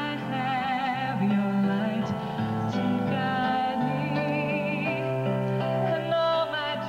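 A woman singing a slow song with vibrato on her held notes, accompanying herself on a Korg T2 synthesizer keyboard playing sustained chords.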